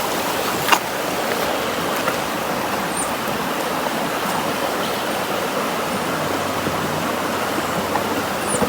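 River water rushing steadily, the river running high and fast after the week's rain. A single sharp knock sounds less than a second in.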